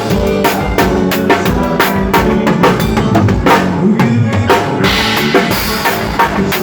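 Drum kit played in a busy groove, with rapid bass drum and snare hits, pitched bass notes underneath, and a cymbal wash about five seconds in.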